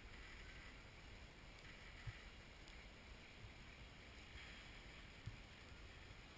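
Near silence: faint steady outdoor hiss on the camera microphone, with two soft low thumps about two and five seconds in.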